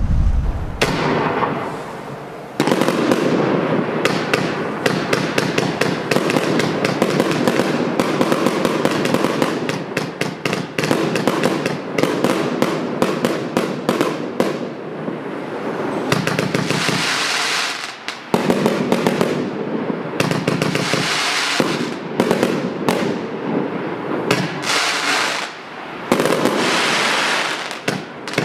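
Vivid Pyrotechnics EL LOCO compound firework cake firing its 25 mm and 30 mm tubes: a rapid, nearly unbroken string of shots and bursts, with brief lulls a few times.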